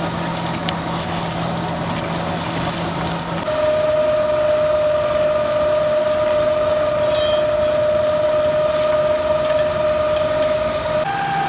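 Heavy workshop machine running with a steady whine that steps up to a higher pitch twice, first about three seconds in and again near the end, as if shifting speed.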